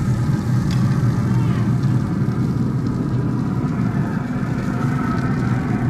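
A steady low mechanical hum, like a motor running, holding level throughout.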